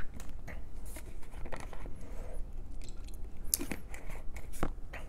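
Scattered clicks and crinkling of a thin aluminium rudder skin being handled and flexed by hand as its leading edge is rolled, the sharpest clicks about three and a half and four and a half seconds in.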